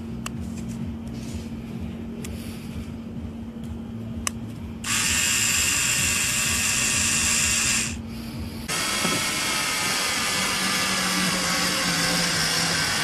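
Motor of a 3.6 V cordless mini screwdriver whirring in two runs. The first, about three seconds long, starts nearly five seconds in. The second starts near nine seconds in and lasts to the end, its pitch sagging slightly near the end as it drives a screw. Before the motor starts there are a few light clicks over a low steady hum as the bit is fitted.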